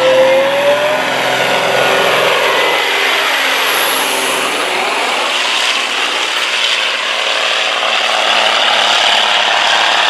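Semi truck's diesel engine running at full throttle as it drags a heavy truck-pulling sled, the engine note dipping and climbing back about halfway through.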